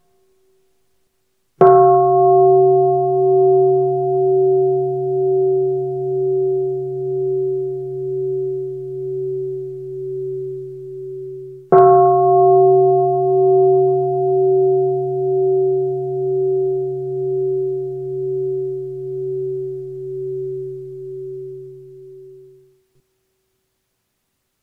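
A Buddhist meditation bowl bell is struck twice, about ten seconds apart. Each stroke rings for about ten seconds with a slow wavering pulse as it fades. The bell marks the close of the meditation session.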